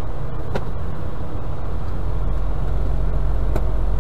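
Semi-truck diesel engine idling: a steady low rumble that grows heavier about a second and a half in, with two brief clicks.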